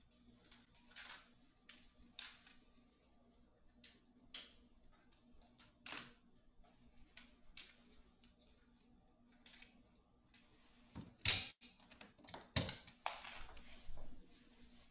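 Faint, irregular clicks and taps, a second or so apart, with a louder cluster of knocks near the end.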